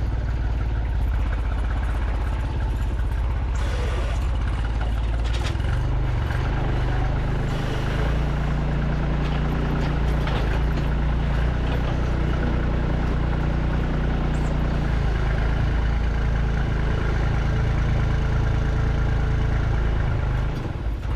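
Truck engine running steadily, a continuous low engine sound that shifts slightly a few times.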